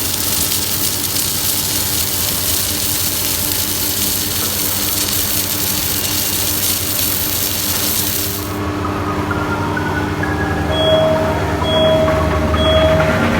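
Welding machine running with a steady hiss over a low hum; the hiss cuts off abruptly about two-thirds of the way through. It is followed by a rising series of tones and a few short repeated beeps.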